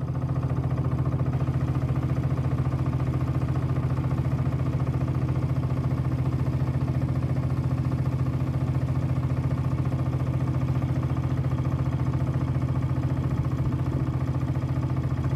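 Boat motor running at a steady speed, an even low-pitched hum with a fast pulse.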